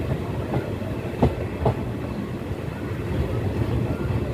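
Express train coach rolling slowly through a station: a steady low rumble of the running gear, with two sharp clacks of the wheels a little after a second in.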